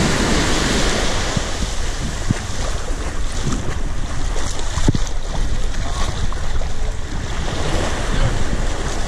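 Small waves washing up onto a sandy beach and swirling in the shallows, with wind rumbling on the microphone.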